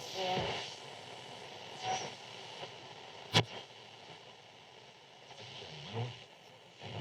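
Radio being tuned across the dial: static hiss between stations, broken by brief snatches of station sound and short whistles. One sharp crackle about three and a half seconds in is the loudest moment.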